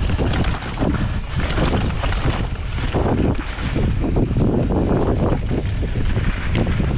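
Mountain bike riding fast down dirt singletrack: wind buffeting the microphone over the rush of the tyres on dirt, with irregular knocks and rattles from the bike over the uneven ground.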